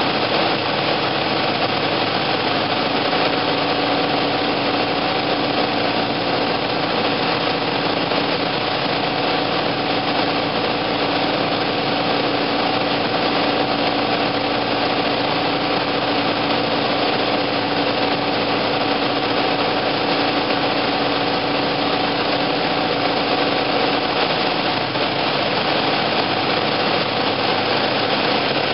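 Piper Cherokee PA-28's single piston engine and propeller droning steadily, heard from inside the cockpit on final approach.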